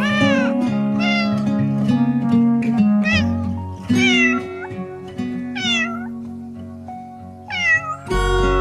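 A cat meowing repeatedly, about six meows, over music with steady sustained notes; the music shifts to a fuller part with a deep bass near the end.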